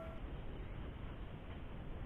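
The ringing tail of a bell-like subscribe-button chime fades out in the first moment, leaving only faint, steady background hiss.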